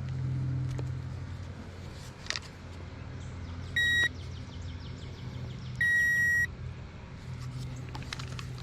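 Two electronic beeps, a short one and then a longer one about two seconds later, over a steady low motor hum.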